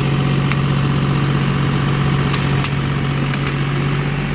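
John Deere farm tractor's diesel engine running steadily while the tractor is stuck in deep mud and being pulled on by a tow rope. A few sharp clicks are heard in the middle.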